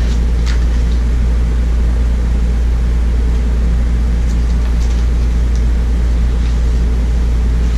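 Steady low mechanical hum, with a few faint rustles and taps from the pages of a picture book being handled.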